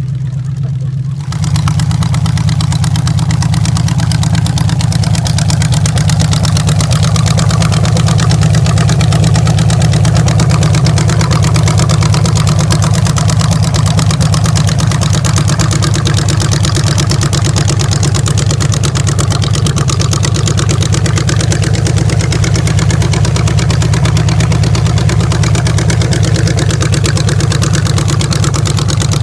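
Chevrolet V8 in a rat rod running steadily through short open headers with no mufflers, a loud, even drone. It gets suddenly louder about a second in and then holds steady.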